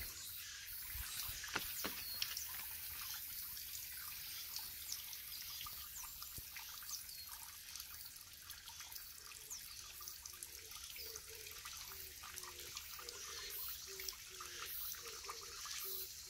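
Small mountain stream trickling and dripping over rocks and a concrete weir, a steady light splash with scattered drips. In the second half a faint low note repeats about once or twice a second.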